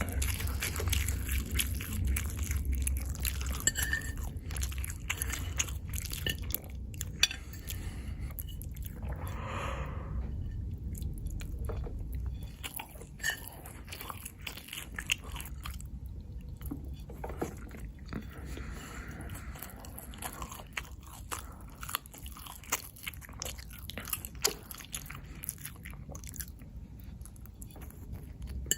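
Close-miked chewing: a person eating, with many short wet mouth clicks and smacks. A low steady hum sits underneath and fades out about twelve seconds in.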